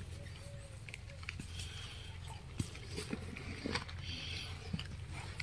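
Gray langurs biting and chewing apples: scattered short crunches and clicks over a steady low rumble.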